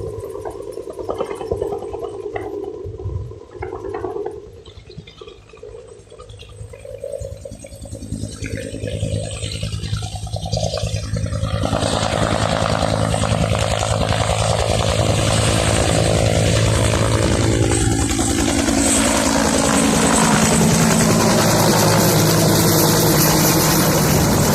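Water-bombing helicopter approaching: its rotor and engine noise builds from faint to loud about a third of the way in, and its droning tones slide down in pitch as it passes close. The sound stays loud to the end.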